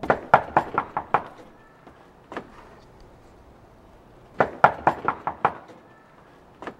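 Rapid knocking on a house's front door: a quick run of about seven blows, a lone knock, then a second run of about six blows a few seconds later.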